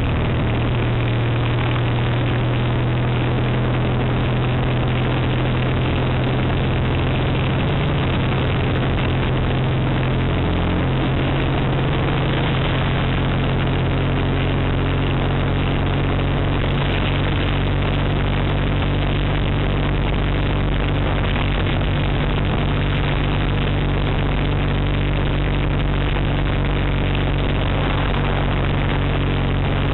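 Triumph Bonneville parallel-twin engine running under way, heard from the rider's seat over a steady rush of wind and road noise; the engine note steps in pitch about eight and again about eleven seconds in.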